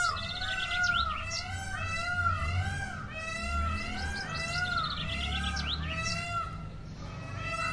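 Indian peafowl (peacock) calling: a loud, nasal, rising-and-falling call repeated about twice a second in a long series.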